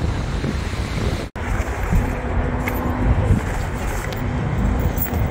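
Low rumble of wind on the microphone mixed with road traffic noise, cutting out for a moment about a second in.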